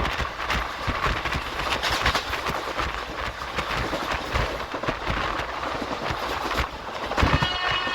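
Indian Railways express passenger coach running on the track, heard from a window seat: a steady rumble with quick, uneven clatter and rattling from the wheels and coach. A faint high ringing tone joins near the end.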